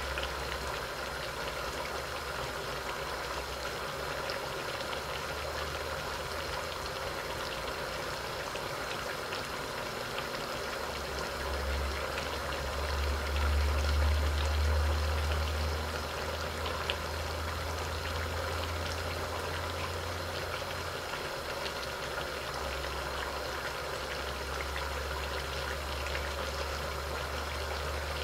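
Duck karahi cooking in a covered iron karahi over a gas flame: a steady bubbling and sizzling hiss. A low rumble under it swells for a few seconds around the middle.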